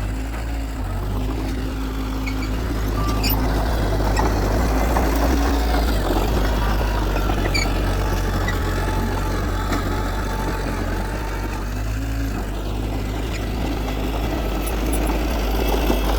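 Heavy diesel earthmoving machinery running steadily, a deep engine drone with no pauses.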